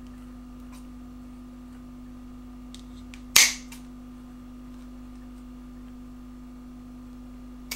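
A pair of scissors snipping through 3 mm elastic shock cord, one sharp snip about three seconds in and a fainter click near the end, over a steady low hum.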